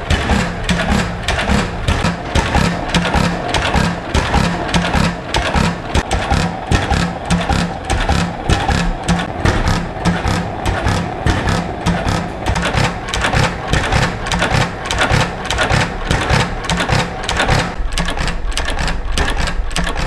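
Two small flywheel air compressors running steadily, with an even mechanical knocking of about three to four beats a second.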